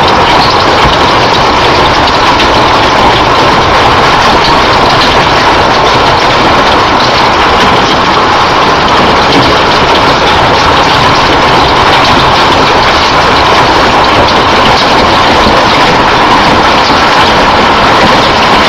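Marble-sized hail and heavy rain pelting down in a loud, steady downpour, dense with the small ticks of hailstones striking.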